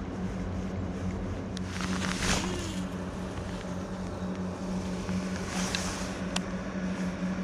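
A steady low hum, as of a small motor running, with two short splashy swishes at about two seconds in and again near six seconds.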